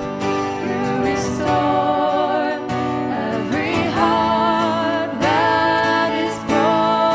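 Worship song: a voice singing long held, wavering notes over guitar accompaniment.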